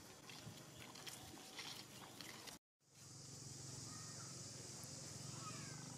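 Faint outdoor ambience: light scattered clicks and scuffs at first, then a brief dropout at a cut. After it a steady high hiss sets in, with a few faint short chirps near the end.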